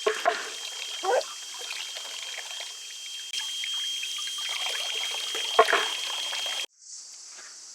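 Water trickling and pouring, with a few louder splashes: one just after the start, one about a second in, and one about five and a half seconds in.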